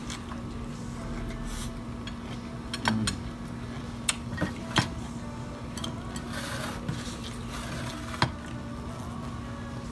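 Chopsticks clicking against the hot pot and dishes in a handful of sharp knocks while noodles and food are eaten, over a steady low hum.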